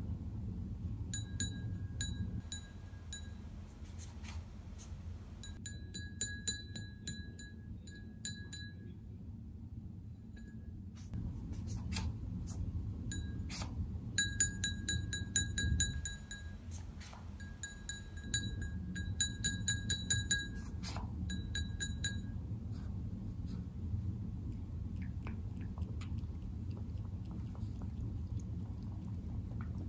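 A cat tapping at its ceramic water bowl: quick runs of small ringing clinks, several a second, in bursts of a few seconds. About three quarters of the way through the clinking stops and the cat laps the water quietly.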